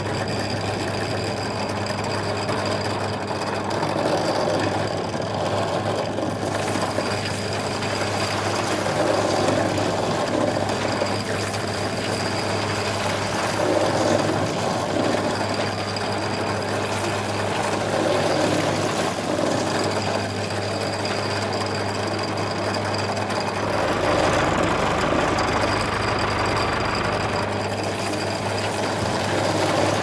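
Small electric gear motor running steadily, spinning a miniature tractor's auger drill down into sand: an even hum with a faint high whine over it.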